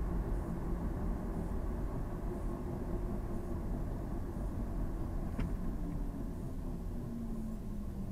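Car cabin noise while driving: a steady rumble of engine and tyres on the road. Faint ticking about once a second and a single short click a little past five seconds in.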